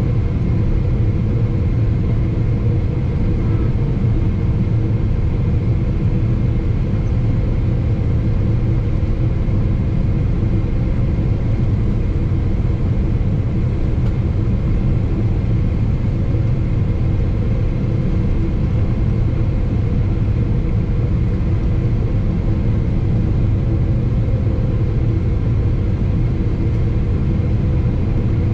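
Steady cabin noise inside a Boeing 777-300ER on final approach: the low rumble of its GE90-115B turbofans and the airflow, heard from a window seat beside the engine.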